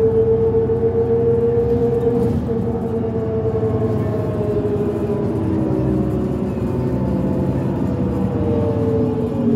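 The Cummins ISL diesel and ZF automatic transmission of a 2005 New Flyer D40LF transit bus running under way, heard from inside the bus. A steady drivetrain whine over the engine rumble slowly falls in pitch as the bus slows.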